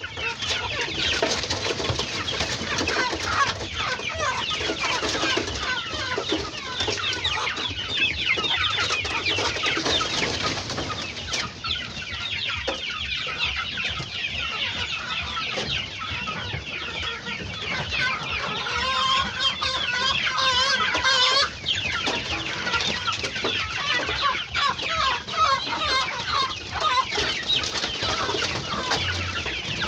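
A flock of chickens in a poultry house, many birds clucking and cheeping at once without a break. About 19 seconds in, one louder drawn-out call stands out for two or three seconds.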